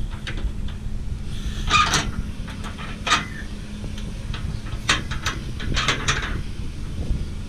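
A vehicle's engine running with a steady low rumble and hum. Several sharp knocks and rattles come over it, the loudest about two and three seconds in, with a quick cluster near the end.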